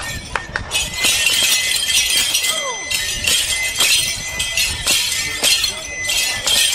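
Rattles shaken in a steady rhythm of short bursts, about one and a half a second, for a traditional circle dance, with voices singing faintly beneath.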